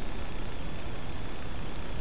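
Steady hiss of static from an analog FPV video link, an even noise with no motor tone or other event in it.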